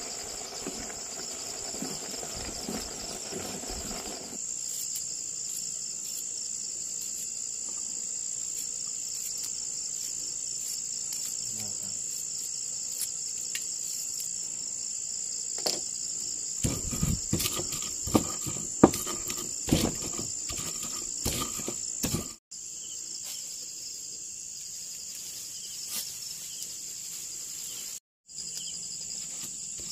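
Insect chorus, a steady high-pitched trilling drone, with scattered knocks and clatter about two-thirds of the way through. The sound cuts out briefly twice near the end.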